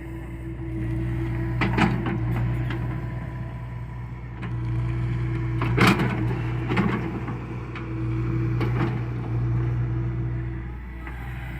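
John Deere excavator's diesel engine running steadily, getting louder about four and a half seconds in as it works and easing off near the end. Several knocks and clatters from the digging, the loudest about six seconds in.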